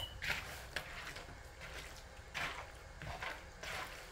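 A hand squishing and turning raw, seasoned chicken breast pieces in a bowl: soft, irregular wet squelches.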